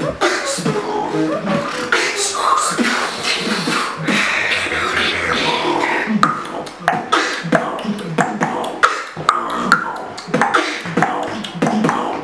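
Two beatboxers jamming a trap beat by mouth. The first half is mostly held, vocal sounds and bass; from about six seconds in come rapid, sharp percussive hits in a quick rhythm.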